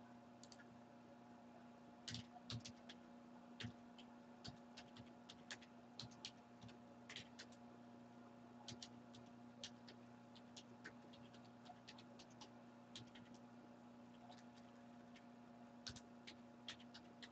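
Faint, irregular clicking of a computer keyboard and mouse, a few clicks a second in uneven bursts, over a steady low hum.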